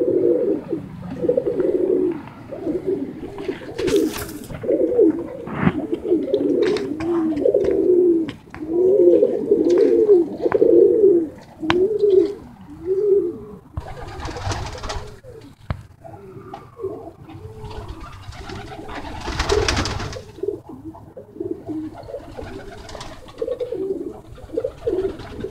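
Several tippler pigeons cooing together, with overlapping low, rolling coos that are densest in the first half and thin out later. Two short bursts of noise come through about halfway and again a few seconds later, with a few small clicks.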